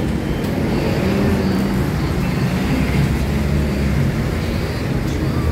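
Motor vehicle engines and road traffic: a steady low engine hum with road noise, its pitch shifting slightly.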